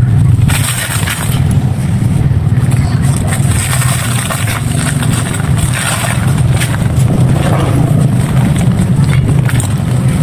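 Dry clay and sand being crushed and crumbled, a dense, continuous crunchy crackling with a deep undertone.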